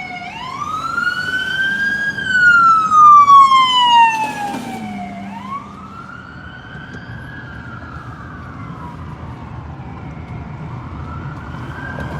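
Ambulance siren wailing, its pitch rising and falling in slow sweeps of about four to five seconds. It is loudest in the first few seconds and fainter after about five seconds.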